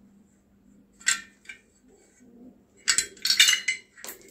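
Small metal parts clinking and rattling against each other as they are handled: two light clinks, then a busy run of ringing metallic clinks about three seconds in and one more near the end.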